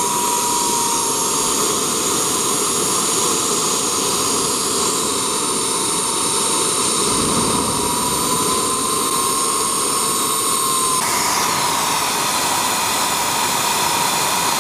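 Homemade turbojet engine running steadily: a loud rush of jet noise with high turbine whines over it, as its fuel is switched from propane to kerosene. The sound changes abruptly about eleven seconds in.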